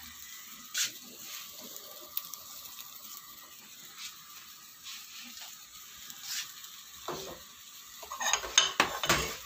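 Steel pot of chicken broth boiling on a gas stove with a steady hiss, and a few light clicks of a spoon against the pot as the foam is skimmed off. Near the end comes a louder clatter of metal pots and utensils.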